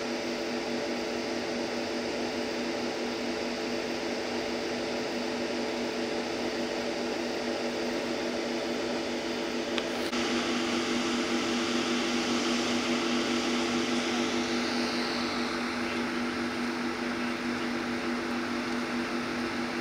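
Steady mechanical hum made of a few low held tones. About halfway through, a louder hiss joins it for several seconds, then fades.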